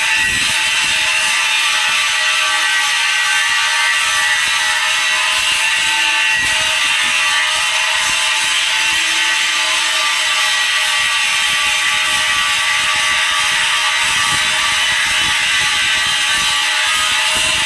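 Arc welding on a steel pipe joint: a steady, unbroken sizzling hiss from the arc, with a faint steady hum underneath.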